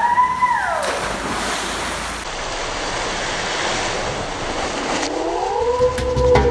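Water rushing and splashing as a person slides down a plastic water slide and plunges into a pool. A smooth whistle-like tone rises, holds and falls at the start, and again near the end.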